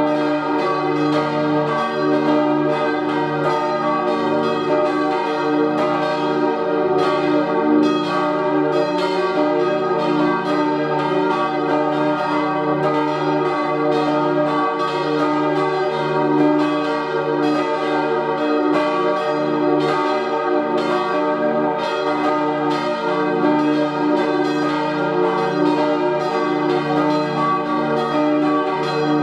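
Swinging church bells from a peal of four cast by Rüetschi in 1888, tuned to E-flat, G, B-flat and the upper E-flat, ringing continuously, their strikes overlapping several times a second.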